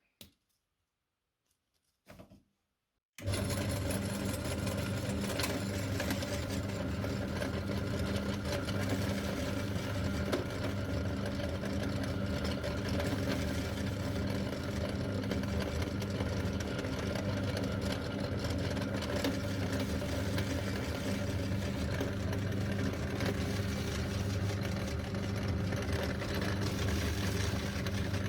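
Electric meat grinder starting up suddenly about three seconds in and running steadily with a strong motor hum, grinding cookies.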